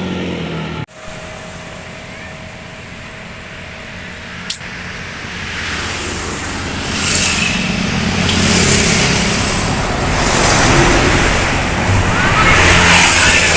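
Road traffic: a large vehicle's engine and tyre noise grow louder from about six seconds in and swell in waves, with a single sharp click near the middle.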